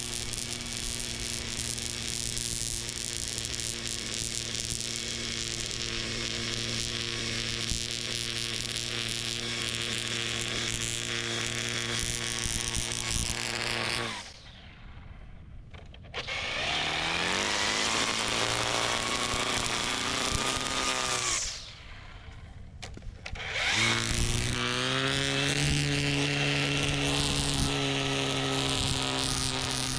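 Toro Revolution Grandstand battery-powered mower's electric blade motors running with a steady whine and whirr. About halfway through they shut off, then spin back up with a rising whine. They cut out again for a couple of seconds and wind back up to full speed.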